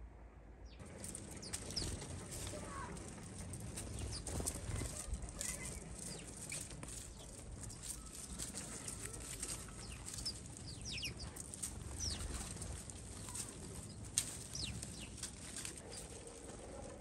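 Sparrows chirping at a bird feeder in short, high, falling notes, with scattered small clicks from the birds moving on the wooden feeder. The sharpest click comes about fourteen seconds in.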